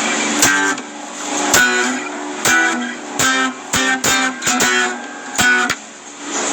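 Guitar chords strummed at an uneven pace, about one strum a second with a few quick pairs, each chord ringing briefly.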